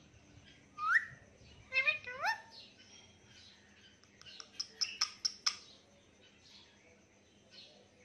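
Indian ringneck and Alexandrine parakeets calling: a few rising whistled calls in the first couple of seconds, then a quick run of sharp chirps about five seconds in.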